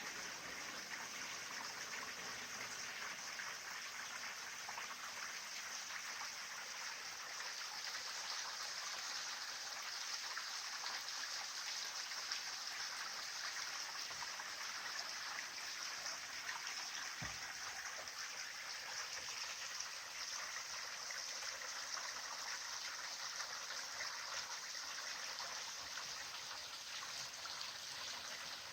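Small mountain-valley stream flowing, a steady, even sound of running water. One brief low thump about two-thirds of the way through.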